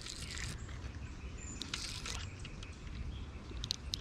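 Outdoor background noise with a low steady rumble, a brief rustle of noise at the start, and a few short, faint bird chirps, mostly near the end.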